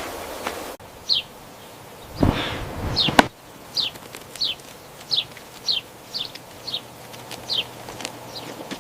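A small bird chirping: a run of short, high notes, each falling in pitch, about one and a half a second. A brief rush and a sharp click come a few seconds in.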